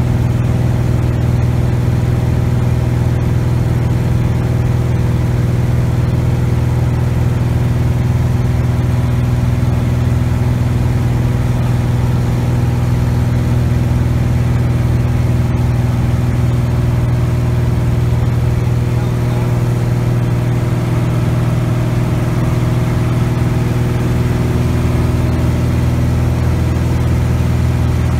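Cessna 180 Skywagon's six-cylinder Continental O-470 engine and propeller droning steadily in flight, heard inside the cockpit, with a constant deep pitch that holds unchanged.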